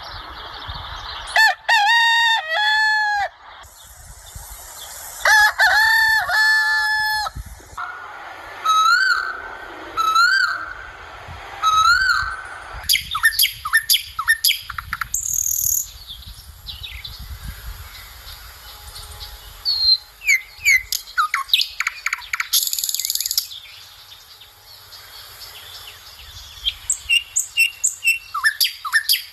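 Birds calling and chirping. A few loud, pitched call phrases come first, then three rising whistled notes about a second apart, then quick runs of chirps.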